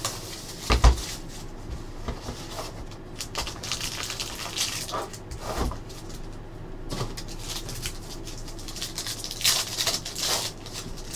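Plastic shrink-wrap crinkling as it is pulled off a sealed trading card box, with a sharp thump about a second in, then the cardboard box being handled and opened. Near the end a card pack wrapper is torn open with a loud burst of rustling.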